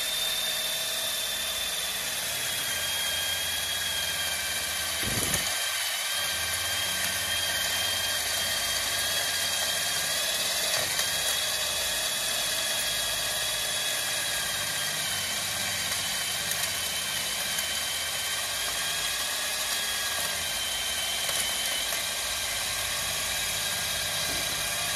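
Kutan 1800 W electric diamond core drill running steadily under load as its core bit cuts into a wall, a continuous motor whine with a slightly wavering high tone. A brief low knock about five seconds in.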